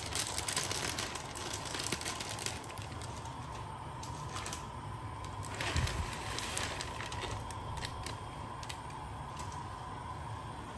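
Dry muskmelon seeds poured from a plastic packet into a non-stick kadhai, pattering and rattling against the pan with the packet crinkling, in two bouts: the first over the opening couple of seconds, the second around the middle. A steady low hum runs underneath.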